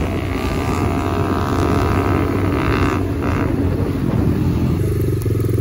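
Four-stroke dirt bike engine running under way, with wind buffeting the microphone; the engine note changes to a steadier, more even running from about five seconds in.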